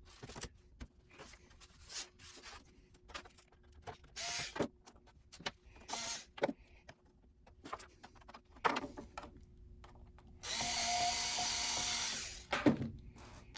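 Scattered clicks and taps of a screwdriver working the bottom-cover screws of a laptop, then near the end an electric screwdriver runs steadily for about two seconds.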